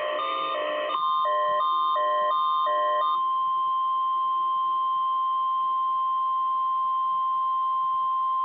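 NOAA Weather Radio 1050 Hz warning alarm tone: one steady, unbroken tone that starts about a second in and sounds as part of the routine weekly test. For its first couple of seconds it overlaps a repeating on-off beeping pattern, and it follows a second of buzzy noise.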